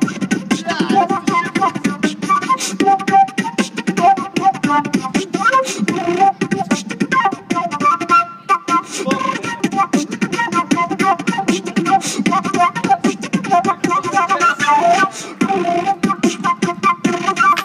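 Beatboxing: fast vocal percussion of clicks and kicks with a flute-like melody line carried over it, pausing briefly about eight seconds in.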